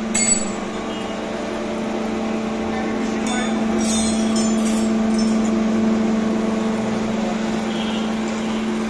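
Kalsi wood planer running steadily after its rotor repair, with an even hum from the motor and cutter block and no audible vibration. A sharp metallic clink comes about a third of a second in, and a few lighter metallic clinks follow between about three and five seconds in.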